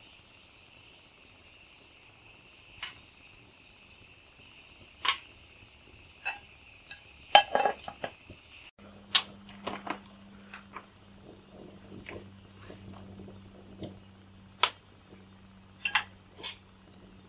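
Cooking over a campfire: a metal utensil clinks and scrapes in a camp pot on a twig stove, mixed with sharp crackles from the wood fire. A steady high insect chirring fills the first half and cuts off abruptly about nine seconds in.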